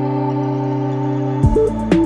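Calm ambient background music with held chords. About one and a half seconds in, the chord changes and a phrase of short, separate notes begins.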